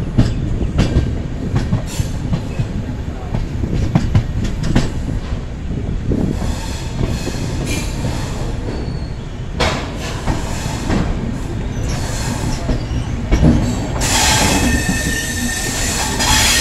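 Passenger train coaches rolling slowly over rail joints and points, heard from an open coach doorway: a steady low rumble with irregular sharp clacks. From about 14 seconds in, a high squeal from wheels and brakes comes in as the train slows into the station.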